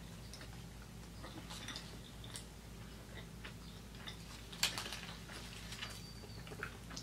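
Close-up chewing of a foil-wrapped cheeseburger: soft wet mouth clicks and small crackles, one louder click about two-thirds of the way through, over a faint steady hum.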